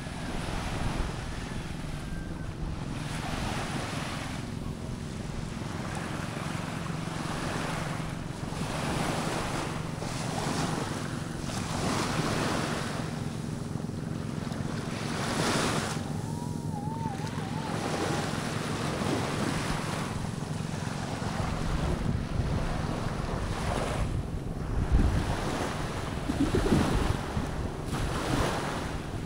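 Small waves washing up and draining back on a sandy beach, swelling every couple of seconds, with wind buffeting the microphone.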